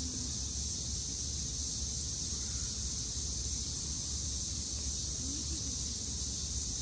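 Steady outdoor ambience: a continuous high-pitched insect chorus over a low, even rumble.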